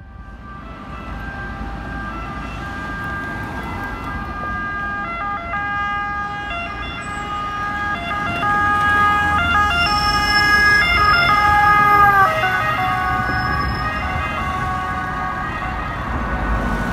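City bus driving past with its engine running, carrying a steady high whine that grows louder and then drops in pitch as it passes, about twelve seconds in.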